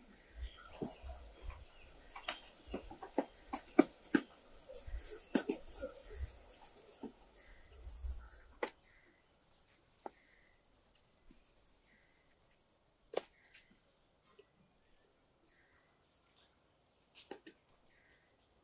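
Steady high-pitched insect drone, like crickets. Over it, a scatter of sharp clicks and knocks comes thick for the first nine seconds or so, then only now and then.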